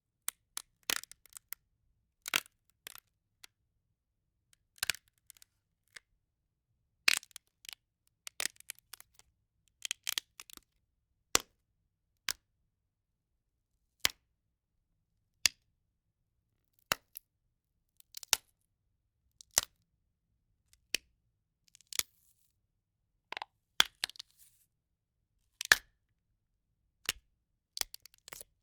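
Bone-crack sound effect: a run of single sharp snaps and pops, roughly one every second or so, some doubled into quick little clusters, with silence between them.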